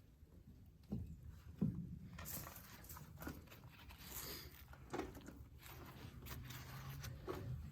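Faint, scattered knocks and scraping of pry bars and hand tools working under a heavy tractor engine cylinder head, about five short knocks a second or two apart.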